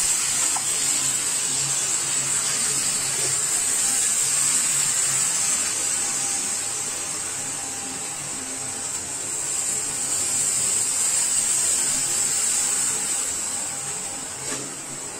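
Soya-and-semolina batter sizzling in a very hot nonstick pan: a steady high hiss that eases off near the end.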